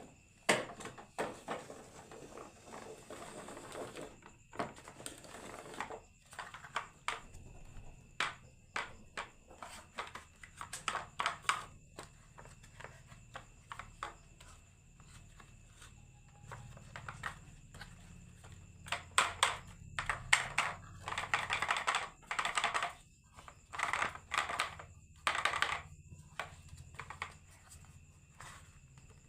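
Marbles rolling and clacking down a wooden marble run: a rapid, irregular string of sharp clicks and short rattles, busiest near the start and again about twenty seconds in.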